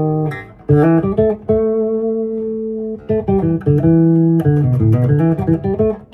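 Electric bass guitar played through an amplifier with the treble turned up: a run of plucked notes, one held for about a second and a half, then quicker notes with sharp, bright attacks in the second half.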